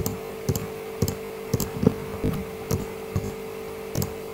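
Computer mouse clicking about twice a second, each click selecting one more hole in the CAM software, over a steady hum.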